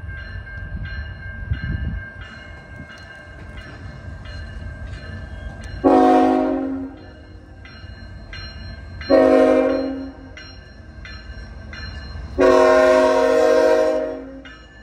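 Diesel locomotive air horn sounding three chord blasts at a level crossing, the last one longer. Under the horn are the crossing-signal bells dinging about twice a second and the low rumble of the train.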